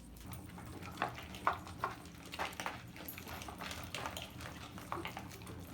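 Dogs eating leftover rice: an irregular run of chewing and smacking clicks.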